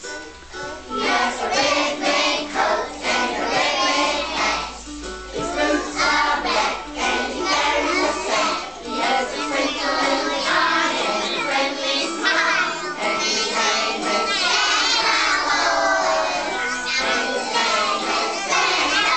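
A group of young children singing a song together, many voices at once and without a break.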